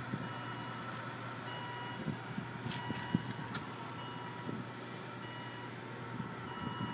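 Volvo S80's in-car warning chime beeping steadily, one short high beep about every 1.2 seconds, over a steady low hum, with a few faint knocks.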